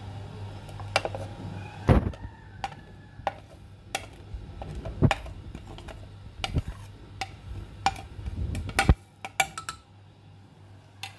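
Metal spoon scraping and tapping spices off a plate into a glass blender jar: a scattered run of sharp clinks and knocks of spoon, plate and glass, over a low steady hum.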